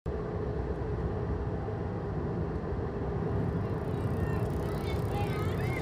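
Steady low rumble of a car driving along a street, with a faint steady hum. Faint high warbling chirps come in near the end.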